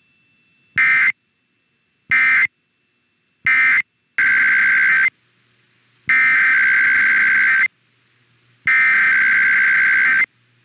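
Emergency Alert System SAME data bursts: harsh buzzing digital tones. First come three short end-of-message bursts about a second and a half apart, marking the end of an alert. Then come three longer header bursts that open a new alert, the first of them cut short.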